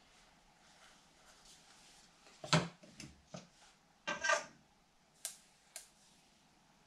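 Kitchen utensils knocking and clinking: a sharp knock about two and a half seconds in, then a brief ringing metallic clatter of a ladle against a stainless steel mixing bowl as batter is scooped, followed by two short clicks.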